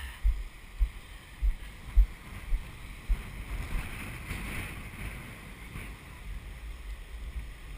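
Wind gusting on the microphone in irregular low thumps, over the steady rush of big surf that swells for a few seconds around the middle.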